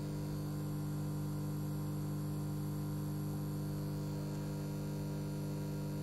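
Samsung CM1929 commercial microwave's high-voltage transformer and magnetron humming steadily and quite loud. They are energised while the rest of the oven, cooling fan included, stays off. The repairer puts this fault down to transformer wiring whose insulation looks to have broken down and is touching the chassis.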